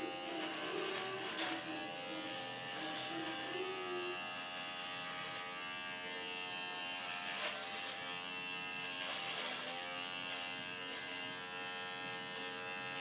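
Cordless electric hair clipper running with a steady buzz while cutting short hair at the back of the neck.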